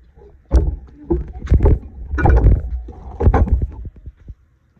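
Wind and handling noise on a handheld camera's microphone: irregular bursts of low rumbling and knocks, stopping abruptly about four seconds in.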